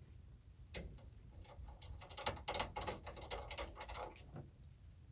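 Small clicks and scrapes of a drain plug being unscrewed by hand on a Rinnai tankless water heater, an irregular scatter that is thickest between about two and four seconds in.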